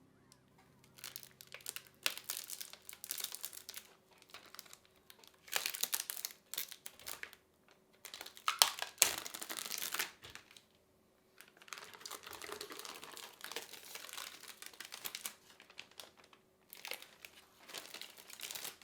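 Plastic wrapping crinkling and rustling as it is handled, in irregular bursts with short pauses. It is loudest about nine seconds in.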